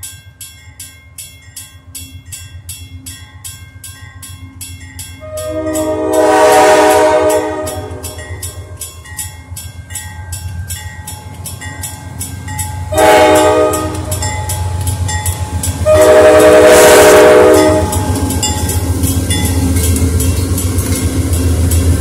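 Grade-crossing bell ringing steadily, then a GE C40-8 freight locomotive's five-chime Nathan K5 horn sounds three blasts: a long one, a short one about seven seconds later, and another long one. Near the end the diesel locomotives and wheels on the rails grow loud as the train passes close by.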